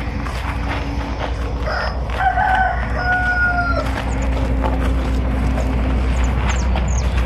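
A rooster crowing once, about two seconds in: a drawn-out crow in two parts lasting about two seconds, over a steady low rumble.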